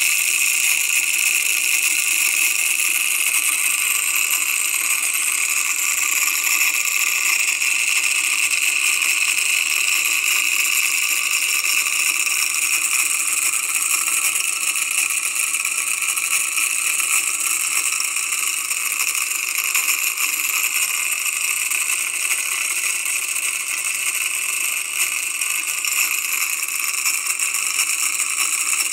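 Homemade simple DC motor: the enamelled-wire coil spinning fast on its axle in bent metal strip supports, the axle ends rattling and clicking rapidly against the supports as a steady, high buzzing rattle.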